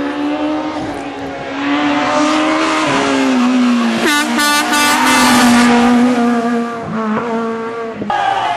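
Renault Clio rally car's engine revving hard as it drives flat out through a bend toward and past the listener. The pitch climbs, drops sharply with a gear change, and climbs again. It is loudest in the middle and cuts off suddenly near the end.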